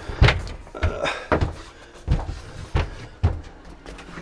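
About six dull thumps, roughly half a second apart, as a man clambers on his knees into a truck's sleeper bunk, his knees and body knocking against the floor and panels.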